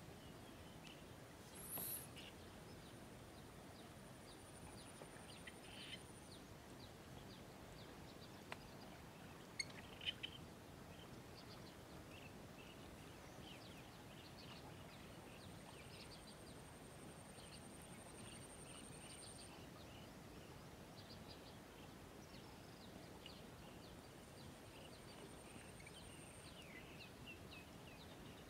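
Faint outdoor ambience of scattered bird chirps throughout, with a thin high tone that comes and goes in long stretches. A brief rustle about two seconds in and two sharp clicks about ten seconds in.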